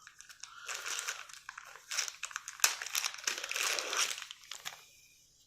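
Plastic packaging crinkling and rustling in bursts as a small bike multi-tool is unwrapped, with a few sharp crackles; it dies away near the end.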